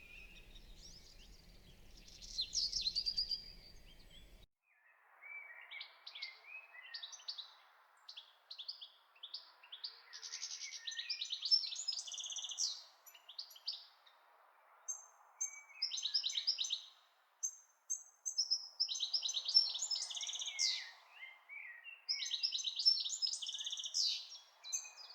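Small birds chirping and twittering in quick runs of short high notes, coming and going, with a faint steady hiss underneath from about four seconds in.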